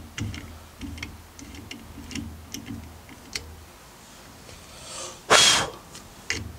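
Hand tap in a tap wrench being worked in a threaded hole in a mild-steel square bar, giving a run of small clicks and ticks as it turns and comes out; the owner says this bar taps badly, with the swarf gumming up the tap. Near the end comes a short, loud whoosh, then a smaller one.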